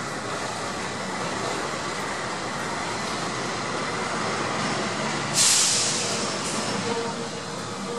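A GE CM20EMP (CC 206) diesel-electric locomotive runs as it rolls slowly through the station. About five seconds in, a sudden loud hiss of air fades out over about a second.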